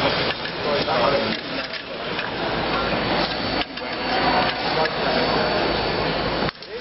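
Background chatter of many people in a large gym hall, with scattered clicks and knocks; the sound drops out briefly near the end.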